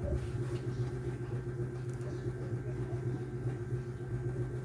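A steady low mechanical hum, with a fainter steady tone above it.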